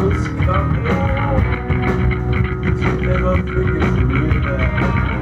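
Live punk rock band playing: electric guitar, bass guitar and drums under a sung lead vocal, as heard from the crowd.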